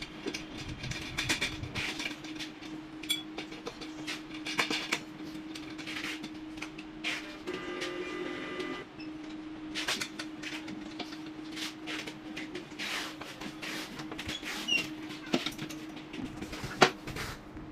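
Metal parts of a microwave stand being handled and fitted together: scattered clicks, clinks and knocks over a steady low hum, with a brief whine about eight seconds in and a sharp knock near the end.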